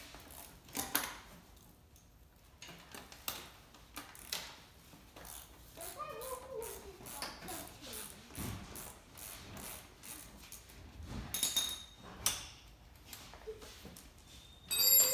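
Hand tools and metal parts clicking and knocking in irregular short taps while an electric kids' ATV is assembled, with a louder metallic clank and a brief ring near the end.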